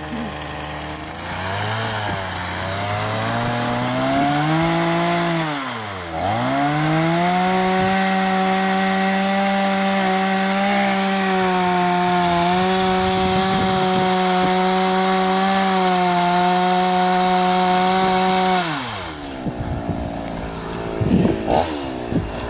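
Kawashima two-stroke gasoline chainsaw cutting into a tree stump. The engine climbs in pitch over the first few seconds, dips sharply once about six seconds in, then holds steady high revs through the cut before dropping back to idle near the end.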